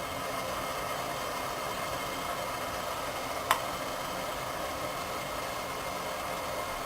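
Steady hiss of water boiling in an idli steamer on the stove, with a single light click about three and a half seconds in.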